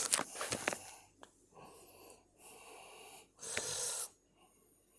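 A person breathing close to the microphone: several short, airy breaths a second or so apart, with a louder one near the end.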